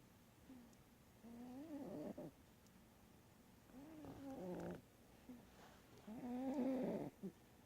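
An animal snoring in its sleep: three drawn-out snores about two and a half seconds apart, each rising and then falling in pitch.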